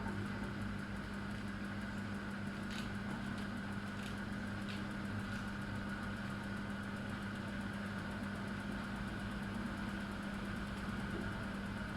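Miele W1 washing machine running just before its spin, making a steady low hum with a fainter higher whine and a few faint ticks early on. This is the strange pre-spin noise that the service put down to the machine not being set up properly or not being used properly.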